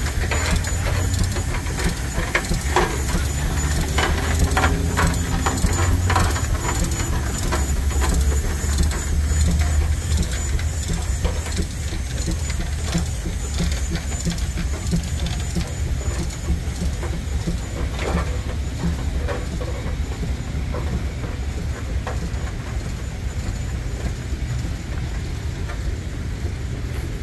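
A large engine running with a steady low rumble, with scattered clicks and knocks over it.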